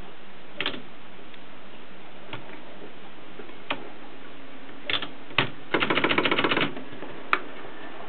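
Gossen Tippa portable typewriter's mechanism worked by hand: scattered single clicks, then a fast ratcheting run of about a dozen clicks in about a second, and one sharp click near the end.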